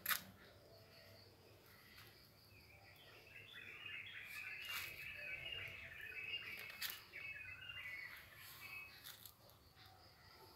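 Faint bird chirping: many quick, overlapping high chirps that build up a few seconds in and thin out near the end. A sharp click right at the start, the loudest moment, and a few lighter clicks.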